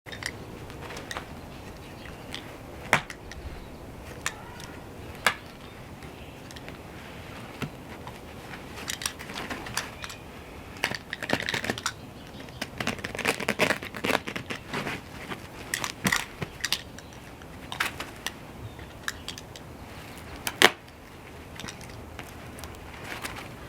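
Low-pile carpet being handled and cut: rustling, scraping and many sharp clicks and knocks, busiest in the middle, with one loud knock near the end.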